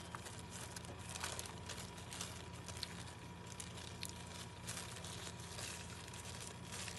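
Eating and food handling: scattered small clicks and crinkles, such as a wrapper and food being handled, over a steady low hum.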